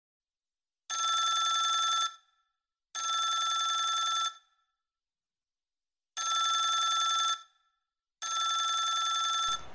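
Mobile phone ringing with an electronic ring: four rings in two pairs, each about a second long with a fast warble, with a longer pause between the pairs. The last ring cuts off near the end as the phone is answered.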